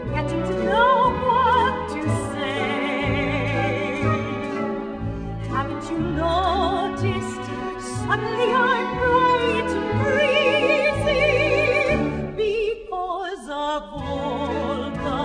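Background music: an orchestral show tune in an operatic style. Its melody is carried with heavy vibrato over a pulsing low bass line.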